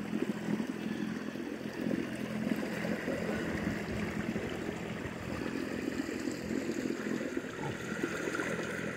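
Water lapping and splashing gently as a paddleboard and a boat are paddled across a calm river.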